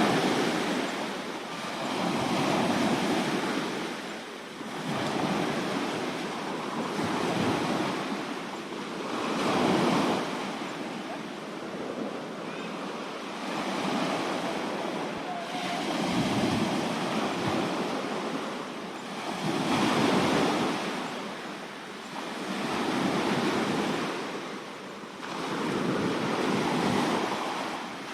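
Sea waves breaking and washing up the shore, the surf swelling and fading again every few seconds.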